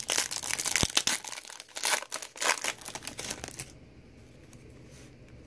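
Foil trading-card pack wrapper crinkling and tearing as it is ripped open by hand: a dense run of crackles that stops about three and a half seconds in.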